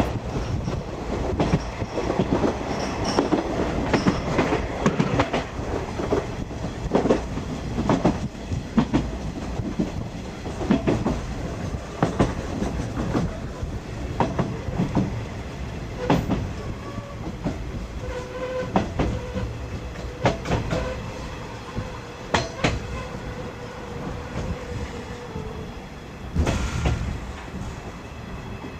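Japanese National Railways 50-series passenger coach running along the line, heard from aboard: a continuous rumble with wheels clicking over rail joints at uneven intervals. A faint steady whine comes in during the second half, and there is a louder thump near the end.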